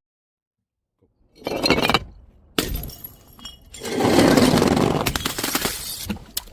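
Glass bottles breaking. After about a second of dead silence there is a short crash, then a sharp smash with ringing glass, then a longer, louder shattering that slowly fades.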